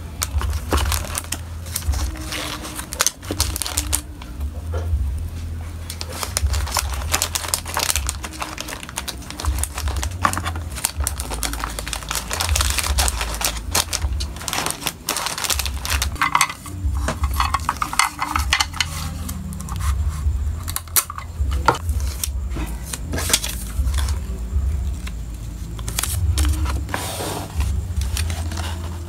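Plastic packaging crinkling and rustling as small wrapped stationery items are handled and set into a kraft cardboard mailer box, with many light, irregular taps and clicks.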